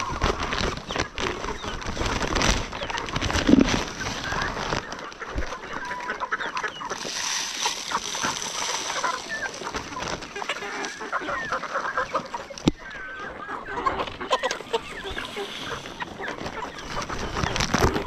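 A flock of brown hens clucking and calling as they crowd in to feed, with many scattered light clicks and one louder thump about three and a half seconds in.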